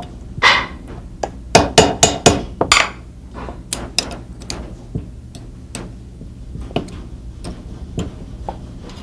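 Sharp metallic taps and clicks of gunsmithing tools and small parts on a 1911 pistol frame during disassembly. A quick run of about six louder strikes comes between about one and a half and three seconds in, followed by lighter, scattered clicks.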